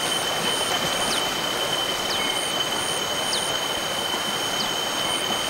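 Shallow river rushing steadily over rocks and gravel riffles, with a steady high insect whine and a high chirp pulsing about twice a second over it.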